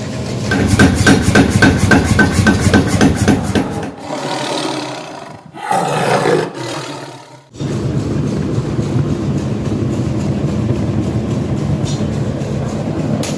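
Rapid hammering on hot metal, about five blows a second, for the first few seconds. Then, after a short stretch of changing sound, a steady even noise of workshop machinery runs on.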